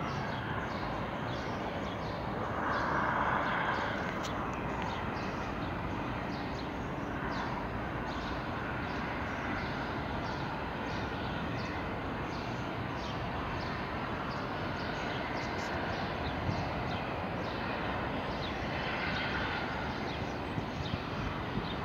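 Distant steam train, the Bulleid light pacific 34052 Lord Dowding, heard as a steady rumble with faint ticks, swelling briefly about three seconds in.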